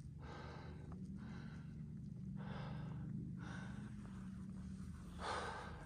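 A hiker breathing hard through the mouth from the exertion of climbing, about one heavy breath a second, the loudest near the end. A faint steady low hum runs underneath.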